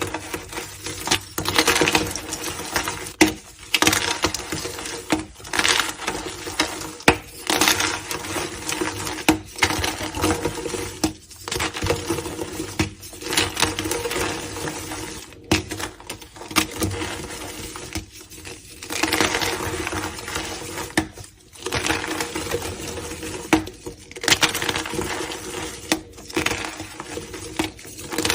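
Blocks of gym chalk being crushed: crunchy, crackling crumbling in repeated squeezes of a second or two, with brief pauses between them.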